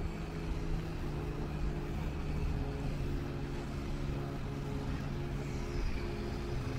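A motor running steadily: a low, even hum over a low rumble, dropping slightly in pitch about a second in.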